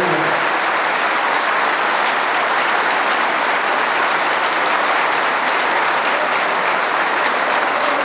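A crowd applauding steadily, a dense wash of many hands clapping together.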